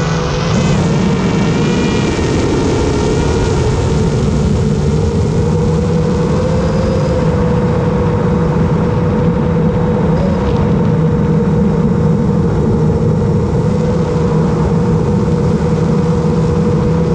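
Long-range FPV quadcopter's brushless motors and propellers whining at a near-steady pitch over a steady rushing noise, the drone cruising at a constant throttle.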